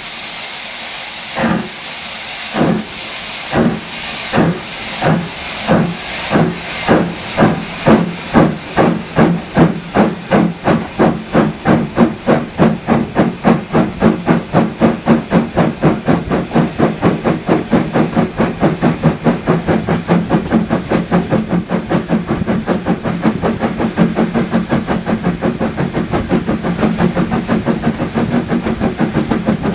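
Steam locomotive 51456, an L&YR 0-6-0 saddle tank, pulling away from a stand. Its exhaust beats start slow, about one a second after a burst of steam hiss, and quicken to a rapid, steady chuff of four or five beats a second, softening as the train gets into its stride.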